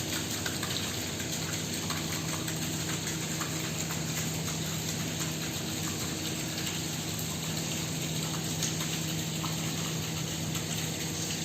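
Rainwater pouring and splashing steadily, with a low steady hum underneath.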